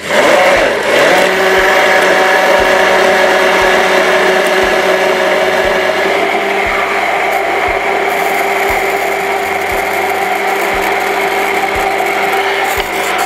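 Hand-held immersion blender switching on and running steadily with a constant hum, whisking eggs in a tall jug as oil is poured in to emulsify a mayonnaise.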